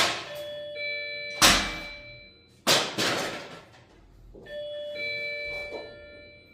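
Ladder being handled: three heavy knocks about a second and a quarter apart, with clear bell-like ringing tones held after them and again near the end.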